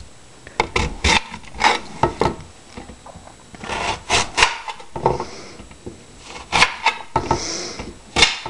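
Kitchen knife cutting a raw peeled rutabaga on a glass cutting board: a string of irregular sharp knocks as the blade goes through and strikes the board, with short scraping sounds of the blade sliding through the root between them.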